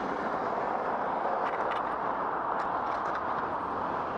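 Steady noise of road traffic, with no single event standing out.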